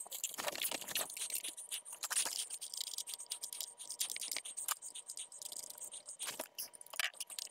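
Sped-up time-lapse sound of hands and tools working under a kitchen sink: a fast, faint, continuous chatter of scratching, scraping and clicking.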